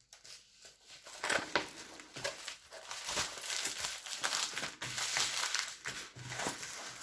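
Crinkling and rustling of the clear plastic film covering a diamond painting canvas as the rolled canvas is unrolled and pressed flat by hand, starting about a second in.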